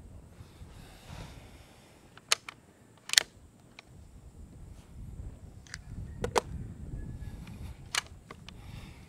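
A series of sharp mechanical clicks and clacks, consistent with handling the Umarex Gauntlet .25 PCP air rifle and working its action, the loudest about three seconds in, over a low rumble of handling.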